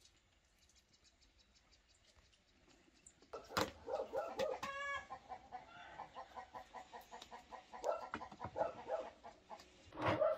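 Domestic chickens clucking in a busy run of short calls, starting about a third of the way in, with a couple of sharp knocks near its start and again near the end.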